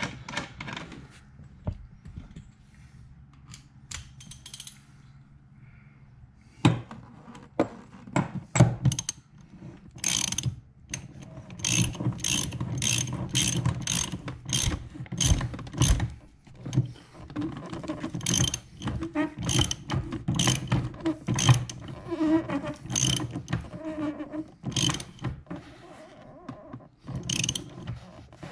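Hand socket ratchet on a long extension clicking in quick runs of back-strokes as it tightens a rear seat-track nut down onto its bracket. The clicking starts about a quarter of the way in and is busiest through the middle.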